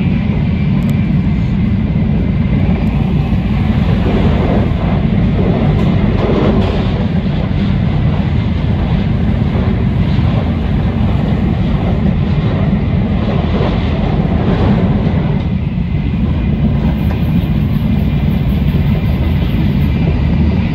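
Shinkansen bullet train running at speed, heard from inside the passenger car: a steady low rumble of the running gear with a fainter hiss above it.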